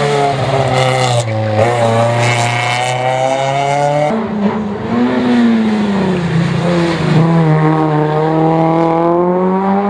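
Race-prepared small hatchback rally cars' engines working hard through hairpin bends. The sound changes abruptly about four seconds in as another car takes over. Its engine note drops as the car slows for the bend and then climbs as it accelerates out.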